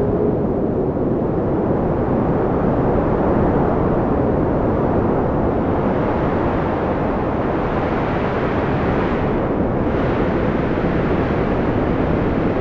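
Strong storm wind buffeting the microphone: a loud, steady rush of noise that does not let up.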